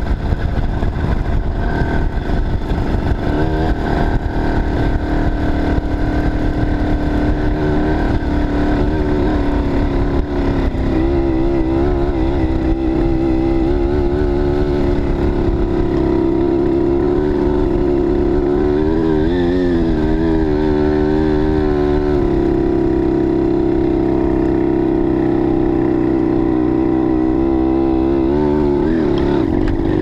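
Bicycle-mounted "China girl" two-stroke tightcase engine with a 21 mm PHBG carburettor, running steadily under load. Its pitch wavers up and down several times as the throttle is worked through deep snow.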